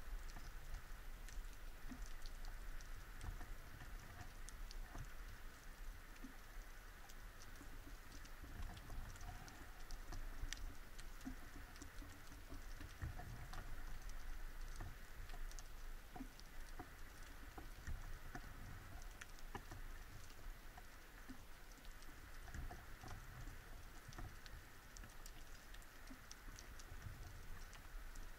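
Faint underwater ambience: a dense, scattered crackle of tiny clicks over a low rumble of water movement.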